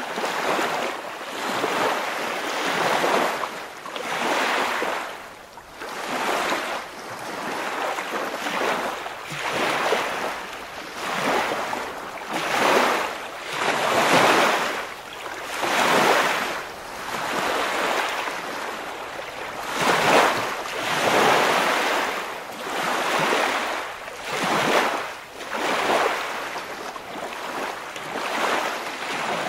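Waves washing in: a rushing water noise that swells and fades about every two seconds.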